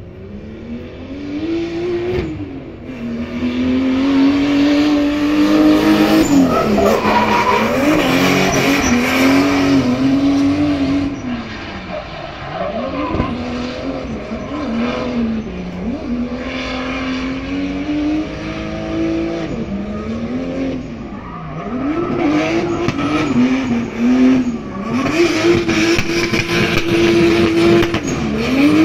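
BMW E82 with an M54B30 straight-six engine drifting, running at high revs, its pitch dropping and climbing back again every few seconds, over the noise of skidding tyres. The sound builds up over the first few seconds.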